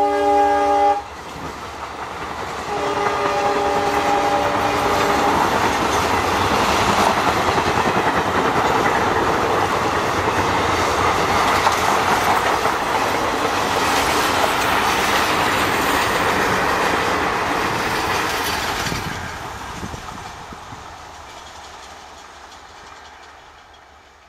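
WDP-4B (EMD GT46PAC) diesel locomotive's high-tone horn sounding a chord of several notes that cuts off about a second in, then a second blast of a couple of seconds. The locomotive and the express's coaches then rush past at about 110 km/h with wheels clattering over the rail joints, the noise fading away over the last several seconds.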